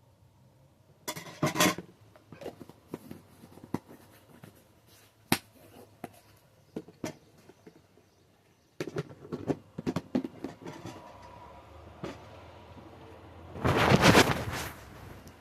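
Kitchen handling noises: scattered clicks and knocks, a busier run of clicking a little past the middle, and one louder noisy burst lasting about a second and a half near the end.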